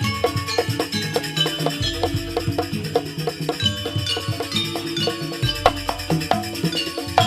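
Jaranan gamelan accompaniment: a fast, even rhythm of ringing struck metal notes over hand-drum strokes, with a deep low boom coming in about two seconds in and again after five seconds.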